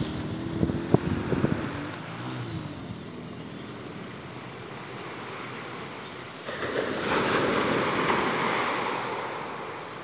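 Small waves breaking and washing up a pebbly beach, with wind buffeting the microphone in the first two seconds. About six and a half seconds in, a wave breaks and washes up louder, then fades.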